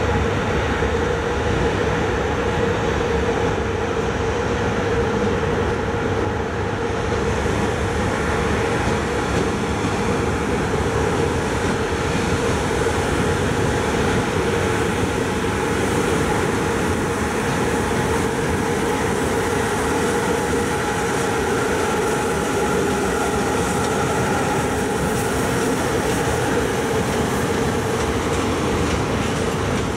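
CFR electric locomotive with its train running, a steady rumble with a constant hum over it.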